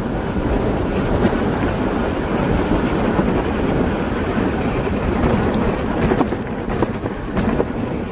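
Wind buffeting the microphone of a camera on a moving e-bike, mixed with the rush of its tyres on asphalt: a steady, heavy rumble. A few sharp ticks or rattles cut through, one about a second in and several more in the second half.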